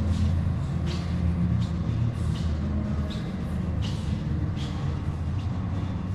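Footsteps on a wooden floor, about one step every 0.7 seconds, over a steady low rumble.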